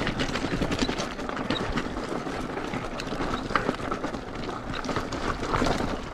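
Mountain e-bike ridden uphill over a rocky path: tyres and frame knocking and clattering on stones, with many irregular sharp knocks.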